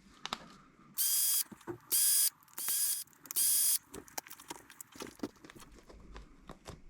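Cordless Milwaukee driver run in four short bursts, each a high whine about half a second long, backing the screws out of a plastic RC crawler wheel's ring. Light clicks of small parts being handled follow.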